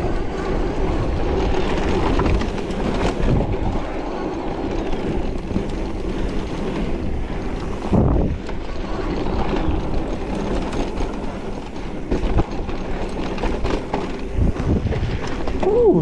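Riding noise of a Luna X2 electric mountain bike with a Bafang M600 mid-drive motor on a dirt trail: a steady rumble and rattle of tyres and drivetrain over rough ground, with knocks from bumps, wind on the microphone and a faint motor whine.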